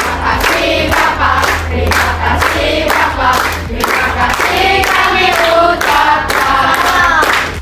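A class of children singing together in a group, clapping along to a steady beat.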